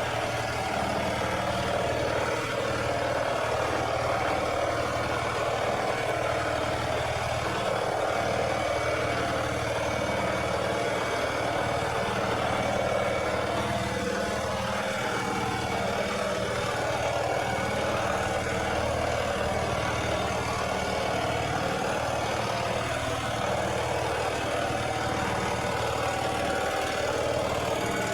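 Lawn mower engine running steadily at a constant speed, with no change in pitch or level.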